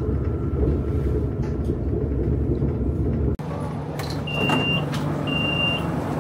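Low steady rumble of a metro train. After a sudden cut, a quieter rumble with a few clicks and a run of short high beeps about once a second, the door-closing warning of a metro train.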